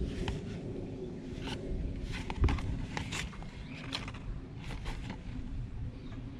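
Cardboard box and paper being handled: scattered short rustles and taps, with one heavier knock about halfway through.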